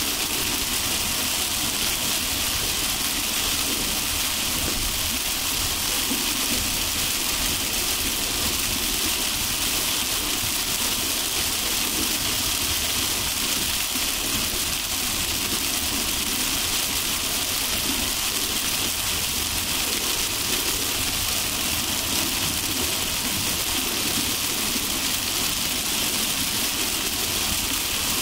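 Heavy rain on a car driving along a highway: a steady hiss of rain and tyres on the wet road over the low rumble of the car.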